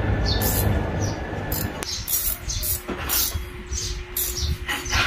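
Wrench turning a 12 mm bolt threaded into a rear wheel hub to force the hub bearing assembly out of the brake drum: repeated short metallic scrapes and clicks about twice a second. A low rumble underneath stops about two seconds in.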